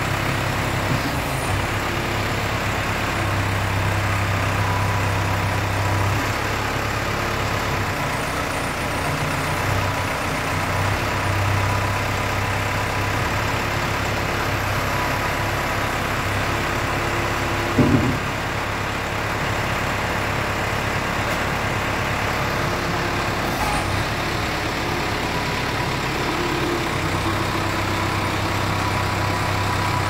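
Case 580 Super L Series 2 loader/backhoe's four-cylinder diesel engine idling steadily, with one short knock about eighteen seconds in.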